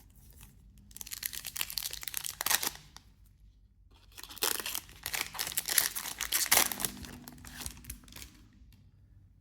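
A trading-card pack wrapper being torn open and crinkled, in two stretches of crackling tearing noise with a short pause between them.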